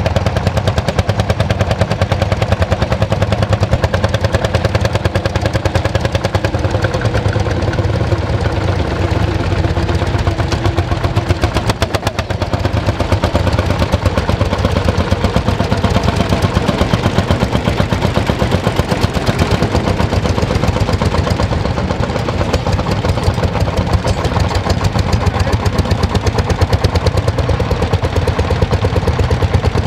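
Lanz Bulldog tractors' single-cylinder two-stroke hot-bulb engines pulling ploughs under load, a steady, rapid popping exhaust beat from several tractors running at once.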